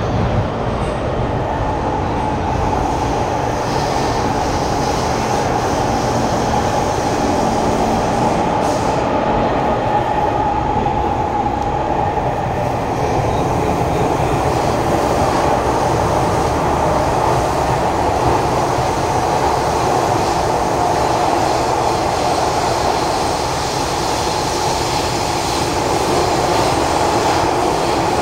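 Kawasaki Heavy Industries C151 metro train running through a tunnel, heard from inside the passenger car: a steady, loud rumble of wheels on rail and running gear.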